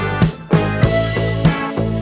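Music with a steady beat: sustained pitched notes over regular percussive hits.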